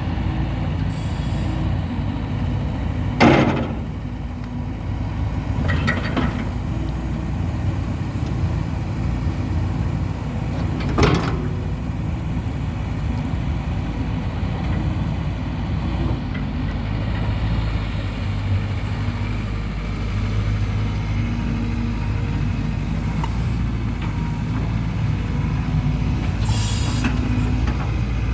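2021 Hyundai HX160L tracked excavator's diesel engine running steadily, with a few sharp clanks about three, six and eleven seconds in and a short hiss near the end.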